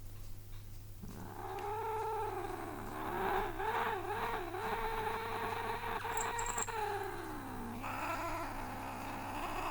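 Domestic cat, held up in someone's arms, giving a long drawn-out yowl with a wavering pitch that starts about a second in and lasts around seven seconds, dipping in pitch before it ends; a second yowl begins near the end.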